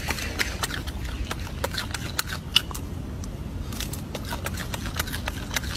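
Irregular crisp clicks and crunches of a golden snub-nosed monkey chewing a piece of fruit, over a steady low rumble.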